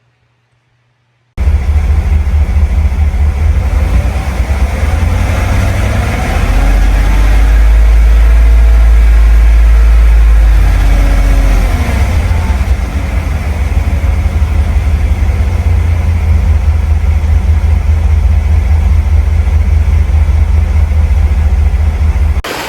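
2015 Cadillac Escalade's 6.2-litre V8 running, recently fitted with new lifters and sounding healthy, with a heavy low rumble. It starts abruptly about a second and a half in, and rises then falls in pitch and loudness once about a third of the way through.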